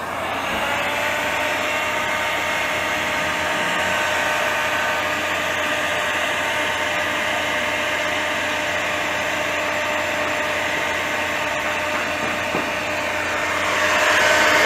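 Stanley 2000-watt heat gun running: its fan motor starts and rises briefly in pitch as it comes up to speed, then holds a steady blowing whine with a hiss of hot air. It grows louder near the end.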